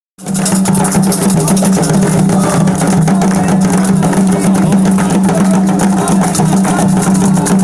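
Candomblé ritual music, loud and continuous, driven by hand drums and other percussion with many rapid strokes.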